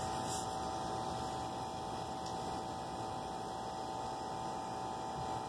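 A steady, unchanging hum over a faint even hiss.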